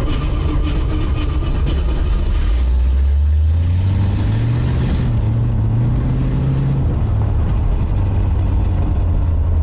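Engine of a hopped-up 1972 Ford Pinto drag car, heard from inside the cabin while driving. It runs low, revs up about two and a half seconds in as the car accelerates, holds the higher note for a few seconds, then eases back down.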